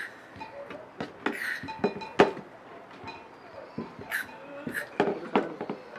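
Butane gas canister being fitted into a folding camping stove's locking collar: a series of sharp metal clicks and knocks, with a few short hisses of gas escaping while the canister is not yet seated cleanly.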